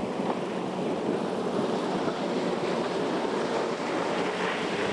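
Steady rush of water and wind around a small boat under way, with wind buffeting the microphone.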